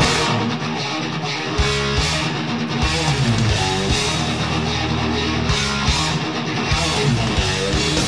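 Band music led by strummed guitar, coming in suddenly at full volume.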